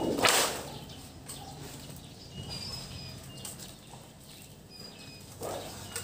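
A large thin metal sheet is being flipped and handled, giving a loud flexing, wobbling rattle about a quarter-second in and another near the end. Birds chirp briefly in between.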